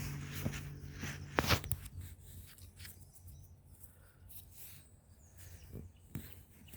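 Footsteps and rustling on the woodland floor, with two sharp crackles about a second and a half in, then scattered quieter ticks. A low steady hum fades out early.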